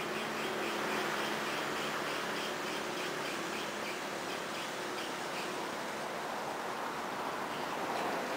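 Swiftlet lure call, the recorded twittering used to draw swiftlets into a bird-nest house: rapid, repeated short chirps over a steady hiss.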